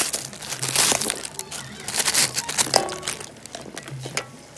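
Dry instant-noodle blocks crunching and cracking and their plastic packet crinkling as the noodles are tipped into water in a wok, in a quick run of sharp cracks and rustles that thins out in the second half.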